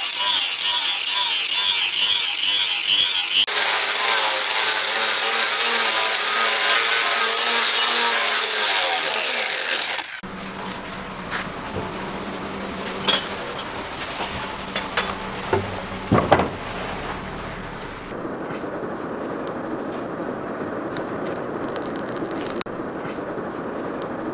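Angle grinder with an abrasive disc grinding a steel cleaver blade made from a disc plough, a loud, dense whine whose pitch sags just before it cuts off about ten seconds in. After that it is quieter, with a few scattered clicks and knocks.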